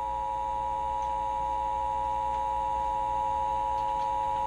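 Emergency Alert System two-tone attention signal: a steady, unbroken dual tone that precedes the spoken tornado warning.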